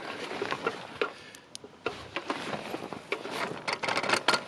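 Rustling with irregular clicks and taps, as of gear and hands moving close to the microphone.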